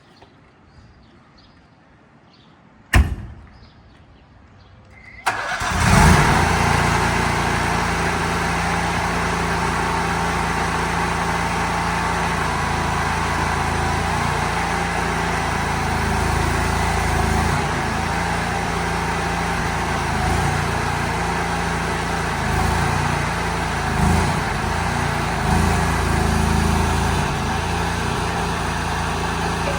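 A sharp knock about three seconds in, then the mini excavator's 29 hp two-cylinder RATO gasoline engine is started about five seconds in, catches at once and runs steadily, rising in loudness briefly a few times toward the end.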